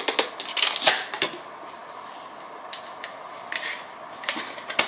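Small cardboard box of body cream being handled and opened by hand: a quick cluster of taps, clicks and scraping rustles in the first second or so, then a few scattered clicks.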